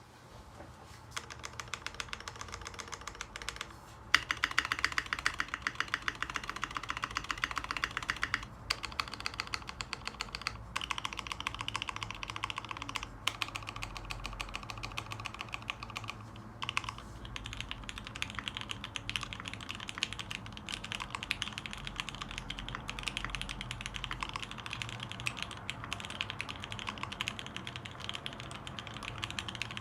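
Typing on a Dolphin v2 custom mechanical keyboard with Krytox 205g0-lubed Cherry vintage black linear switches on a polycarbonate plate. Keystrokes come in fast, steady runs, with brief pauses every few seconds.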